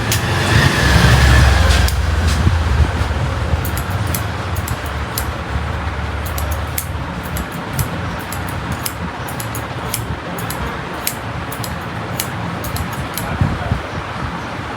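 Barber's scissors snipping: quick, sharp metallic clicks at an irregular pace. Under them runs a steady low hum of road traffic, which swells for the first couple of seconds.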